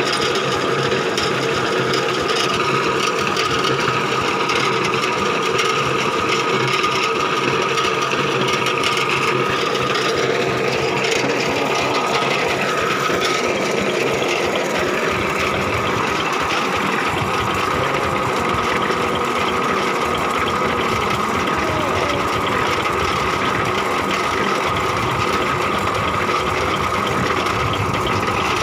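Engine-driven borewell rig machinery running steadily, a constant mechanical rattle with a steady whine over it. Its low rumble grows heavier about halfway through.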